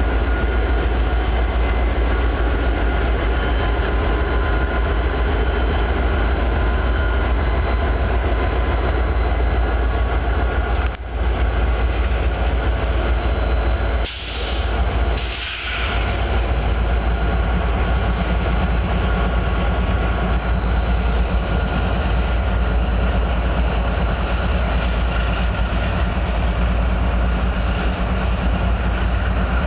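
Freight train with a CSX GE C40-8W and an HLCX EMD SD40-2 diesel locomotive crawling past close by: steady low diesel rumble with the rolling noise of the locomotives and cars. The sound briefly drops out twice near the middle.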